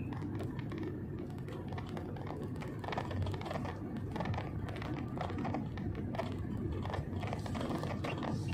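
Steady low rumble of a Wuling Almaz Turbo on the move, heard from inside the cabin, with faint irregular ticking over it.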